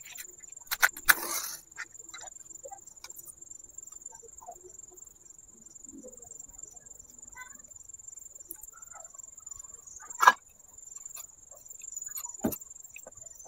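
A matchstick struck on a matchbox to light a tiny clay stove: a short scratchy strike about a second in, and a sharp louder strike near ten seconds, then a single knock a couple of seconds later. A steady high-pitched tone runs underneath throughout.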